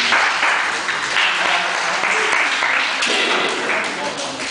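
A small crowd of mat-side spectators cheering and clapping. It breaks out suddenly and eases a little near the end.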